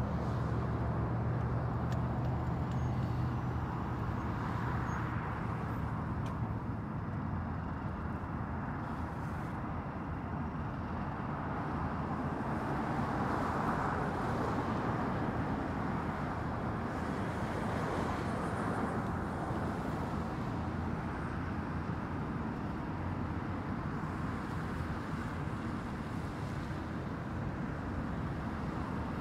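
Steady highway traffic: a continuous rush of tyres and engines that swells and eases as vehicles pass, with a deep engine hum in the first few seconds and the loudest pass around the middle.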